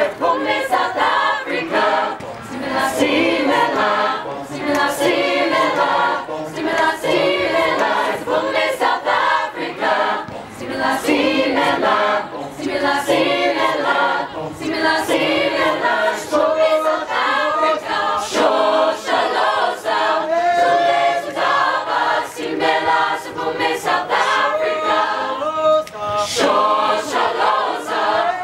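Mixed choir of teenage boys and girls singing a cappella, many voices together.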